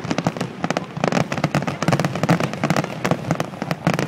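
Aerial fireworks bursting in a dense barrage: many sharp bangs and crackles following one another in quick succession without a break.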